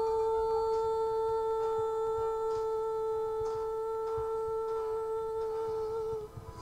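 One long held musical note, steady in pitch, that wavers briefly and then stops about six seconds in, with faint soft taps beneath it.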